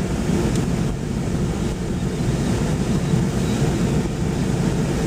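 Steady engine and tyre noise of a car driving along a plowed road, heard from inside the car.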